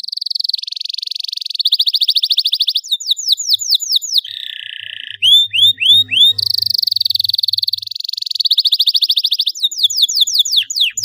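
Domestic canary singing a long, varied song: fast rolling trills alternating with runs of separate sweeping chirps, the phrase changing every second or so.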